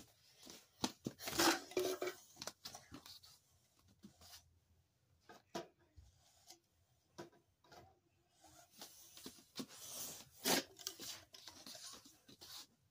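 Red plastic party cups being handled and set onto a stacked cup tower: crinkling, scraping and light plastic clacks, in two busy spells with a few single clicks between.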